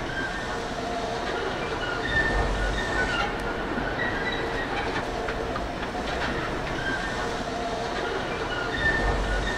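Train wheels rolling slowly on the rails with a steady rumble and clicks, and short high-pitched wheel squeals recurring every second or two.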